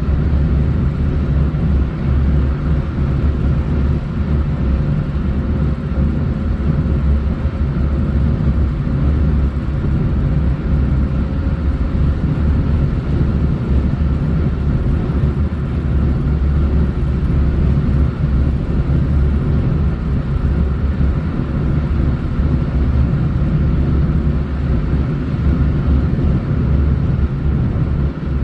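Steady road noise of a moving vehicle: a constant low rumble with a faint steady hum over it.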